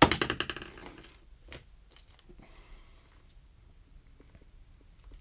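Metal door latch being handled: a loud rattling clack at the start that fades over about a second, then a few faint clicks.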